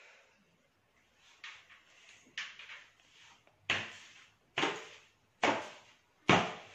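Decorated calabash gourd played with a small stick: about six noisy, rhythmic strokes, roughly one a second, each dying away quickly and growing louder toward the end.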